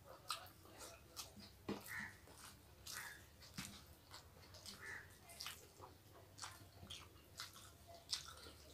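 Faint, irregular eating sounds of people eating rice and curry with their hands: wet chewing and lip-smacking clicks, over a low steady hum.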